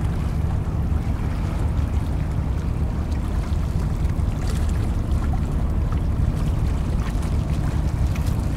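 Harbour tugboat's diesel engines running with a steady low drone while the tug works against a container ship's hull, churning white water behind it.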